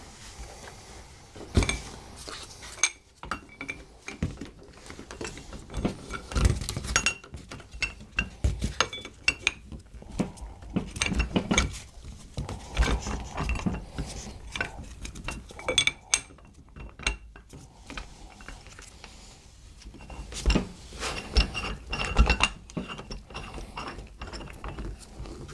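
Steel adapter cups and the C-frame press of a bushing tool kit clinking and knocking irregularly as they are handled and fitted onto a power steering rack housing.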